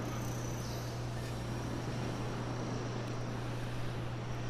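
Room tone through the microphones: a steady low hum with an even hiss underneath.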